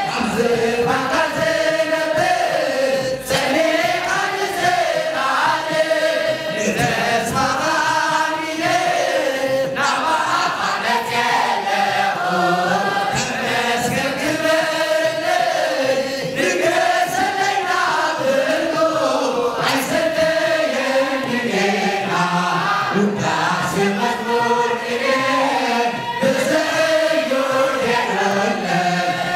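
A choir of men and women singing an Eritrean Orthodox hymn (mezmur) together, the melody rising and falling in a continuous chant.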